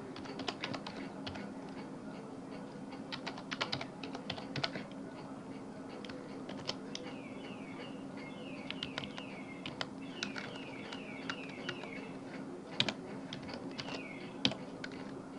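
Typing on a computer keyboard: irregular runs of keystroke clicks with short pauses between them, over a faint steady low hum.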